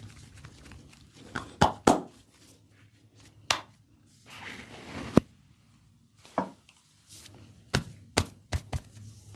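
Sharp slaps of hands on skin during a massage: about nine irregularly spaced strikes, the loudest near two seconds in and about five seconds in, with a softer cluster near the end.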